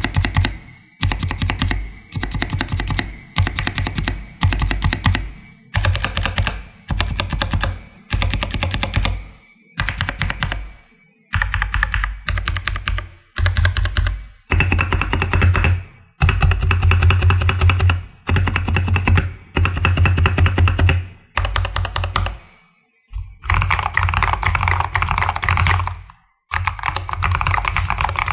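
Vortex VX8 mechanical keyboard with lubed Gateron Brown tactile switches and dampening foam in the bottom case, typed on quickly: runs of rapid keystrokes lasting one to three seconds, broken by short pauses, with longer, steadier runs near the end.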